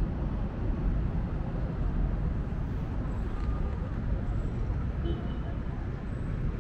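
Steady city street noise, mostly a low rumble of traffic.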